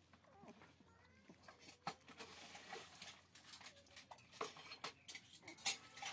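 Puppies moving and being handled: soft clicks, taps and rustling of fur and paws, with a few faint high puppy squeaks in the first second and a half.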